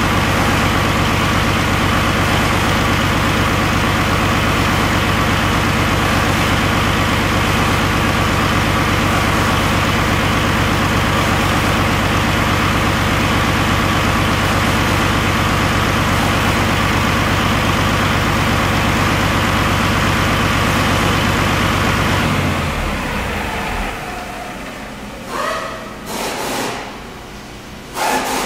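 Paccar MX13 inline-six diesel engine running steadily at a constant speed, then shut off about 22 seconds in, its sound dying away. A few short knocks follow.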